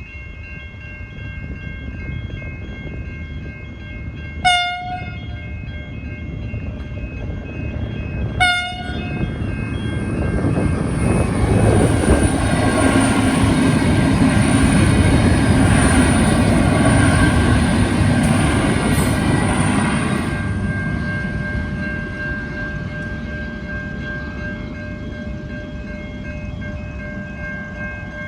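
V/Line passenger train arriving, giving two short horn blasts about four seconds apart, then running past loudly with a high whine for about ten seconds before its sound fades as it draws into the platform.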